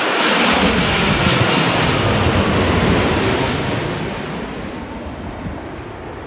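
Boeing 787 Dreamliner passing low overhead on final approach with its landing gear down: a loud rush of jet-engine and airframe noise. It is loudest in the first three seconds, then fades steadily as the aircraft moves away.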